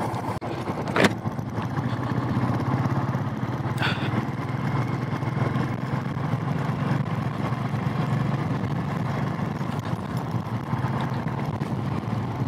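Royal Enfield Thunderbird 350's single-cylinder engine running steadily as the motorcycle is ridden over a rough dirt track. There is a sharp knock about a second in and a fainter one near four seconds.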